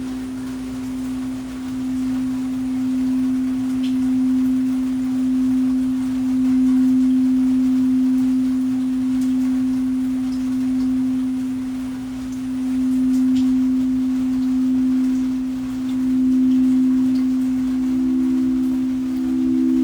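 A singing bowl sounding one sustained low hum that swells and eases in slow waves every couple of seconds. A second, slightly higher tone joins near the end.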